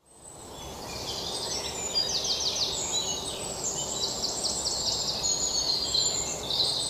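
Outdoor ambience fading in from silence: a steady low background rumble with birds chirping over it, including several quick trilled runs of high notes.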